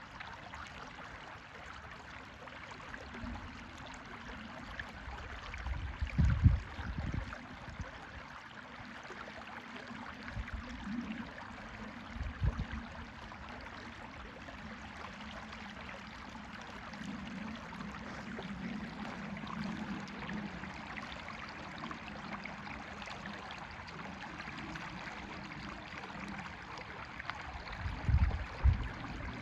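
River water rushing and burbling steadily. A few short low thumps break in, the loudest about six seconds in, another about twelve seconds in and a pair near the end.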